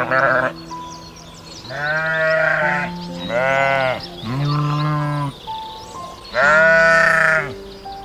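Bleating livestock calling five times: a short call at the start, then four longer calls that rise and fall in pitch, the last the loudest. Background music of soft held notes plays underneath.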